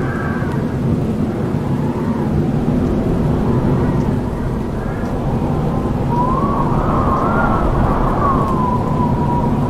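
Howling wind: a steady low rumble with a wavering whistle that rises and falls in pitch, faint at first and growing stronger about six seconds in.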